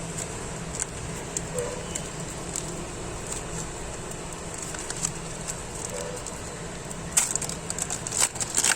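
Trading-card packet wrapper crinkling and being torn open while cards are handled: scattered small clicks, then a burst of sharp crackles near the end.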